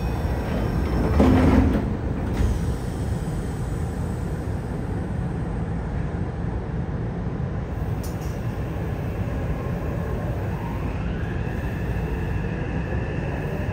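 Subway car doors sliding shut with a thump about a second and a half in, then a steady low rumble inside the stopped car. Near the end, the Mitsubishi IGBT-VVVF inverter and traction motors of the Yokohama Blue Line 3000N train start a rising whine as it begins to move off.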